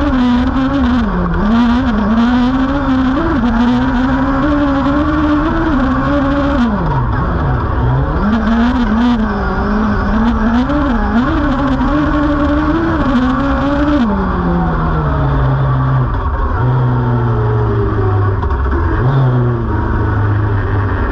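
Suzuki Hayabusa inline-four motorcycle engine in a Volkswagen Beetle autocross car, heard from inside the cockpit, revving up and down hard through gear changes. About two-thirds of the way through the revs fall away and the engine settles to a lower, steadier note as the car eases off.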